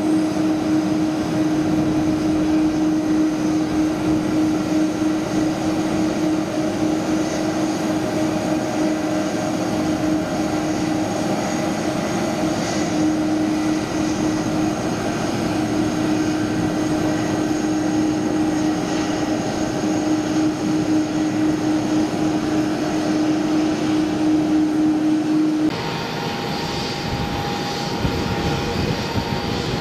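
Twin Pratt & Whitney PW4000 turbofans of an Airbus A330-200 running at low thrust while it taxis, a steady hum with a held low tone. About 26 s in, the sound cuts abruptly to the engines on the takeoff roll down a wet runway: a little quieter and farther off, with higher tones and more hiss.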